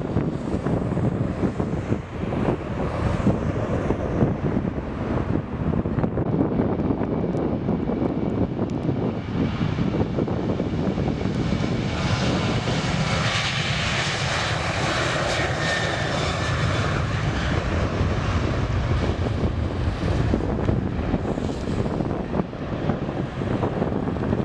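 Boeing 737 airliner's CFM56 jet engines running as the plane passes: a steady jet roar that grows a brighter, higher-pitched whine midway through, then eases off.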